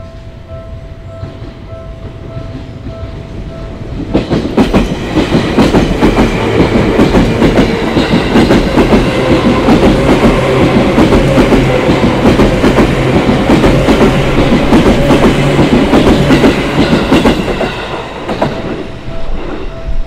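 Level-crossing bell ringing in quick repeated dings as a yellow Seibu Railway electric commuter train approaches, then passes the crossing loudly from about four seconds in, its wheels clacking over the rail joints and drowning out the bell. The train fades away near the end and the bell is heard ringing again.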